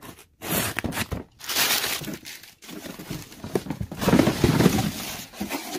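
Cardboard shipping box being opened by hand: its flaps and packing scrape and rustle in irregular bursts, loudest about four seconds in.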